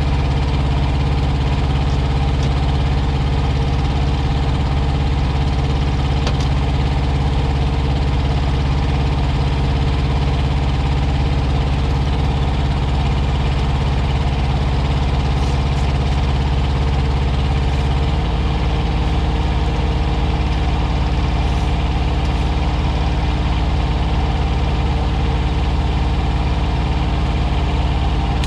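Semi truck's diesel engine idling steadily, running up to temperature after its cooling system has been bled. About two-thirds of the way in, its low note changes abruptly.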